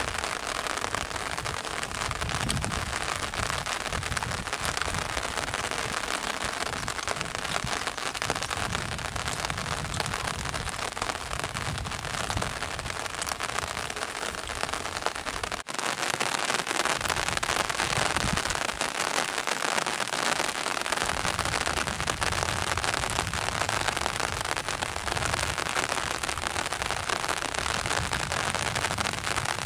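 Steady heavy rain falling: a dense, even hiss of drops with many small close ticks. A brief dropout comes about halfway through, after which the rain is a little louder.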